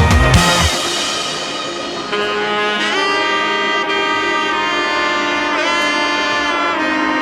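Background music: a heavy beat cuts off near the start, then long held melodic notes play.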